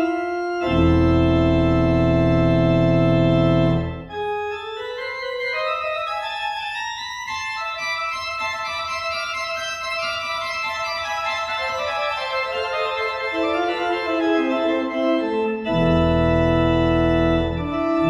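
Pipe organ playing a fugue, several melodic lines moving against one another in sustained notes. Deep pedal bass notes sound for the first few seconds, drop out while the upper voices carry on, and return near the end.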